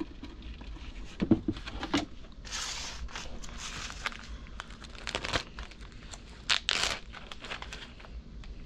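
Plastic zip-top bag crinkling in several short bursts as it is handled, after a few light knocks in the first couple of seconds.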